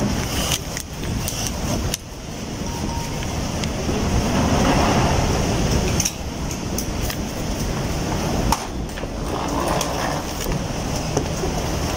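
Airport terminal hall noise: a steady hum and hiss, with suitcase wheels rolling over a hard stone floor. The sound changes abruptly a few times, about 2 and 6 seconds in.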